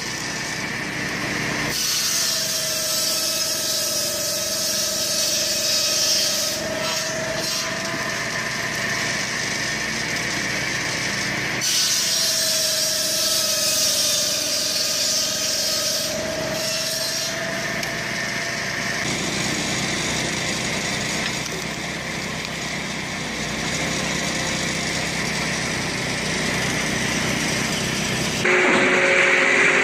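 Large firewood circular saw running and cutting through log rounds fed in on its swinging cradle; during each cut the blade's whine sags slightly in pitch as it bites, twice clearly. Near the end a louder, different sound cuts in abruptly.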